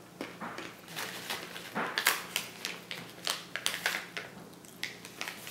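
Mouth chewing roasted almonds with dried tart cherries, a run of irregular crisp crunches.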